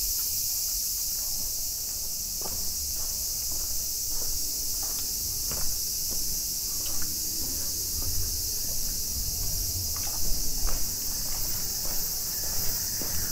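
Steady, high-pitched drone of a summer insect chorus, with the footsteps of someone walking along a paved path at about two steps a second.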